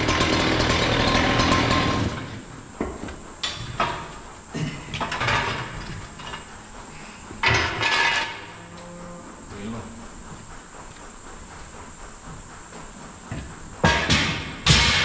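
A power tool runs loudly for about the first two seconds and then cuts off. After that come scattered metal clanks and knocks as steel bars of the old crush head yoke are handled, the loudest two near the end.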